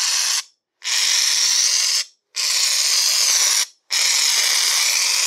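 Aerosol can of Gillette shaving foam spraying in loud hissing spurts, each lasting about a second or more, broken by short pauses.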